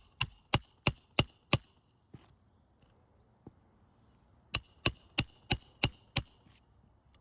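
Roofing hammer driving nails through asphalt three-tab shingles, sharp ringing blows about three a second. There are five strikes, a pause of nearly three seconds, then six more.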